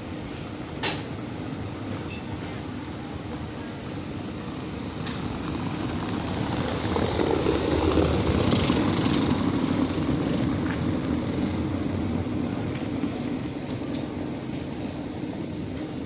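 Urban street traffic noise with a vehicle passing: a steady rumble swells to its loudest about eight seconds in, then fades. A short sharp click sounds about a second in.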